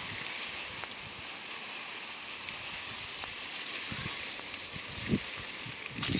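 Water spraying from a garden hose onto tree leaves, a steady hiss, with a few soft low thumps in the second half.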